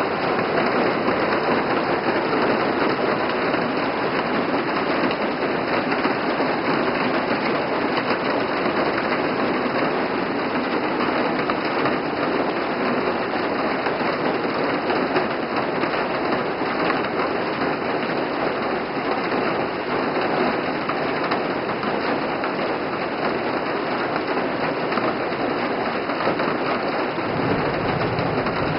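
Heavy rain pouring steadily onto trees, grass and a paved road, an even, unbroken downpour.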